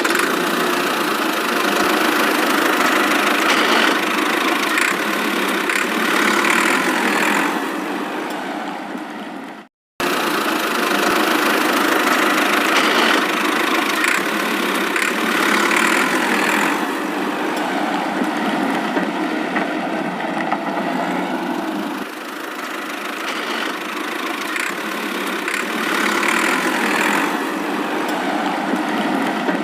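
Tractor engine sound effect running steadily with slight swells. It cuts off abruptly just before ten seconds in and starts again at once.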